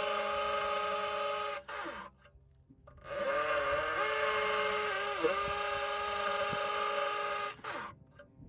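A small motor's steady high whine, in two runs with a short break between them, the pitch dipping briefly near the middle of the second run.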